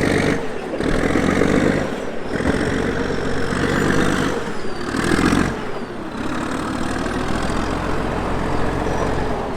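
Heavy diesel engine running steadily at low speed, with louder, rougher stretches that come and go every second or two.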